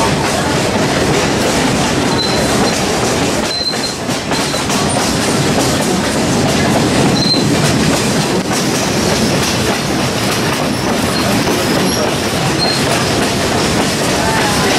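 Steady, loud rolling rumble and rattle of a moving vehicle, with a few brief high squeaks through it.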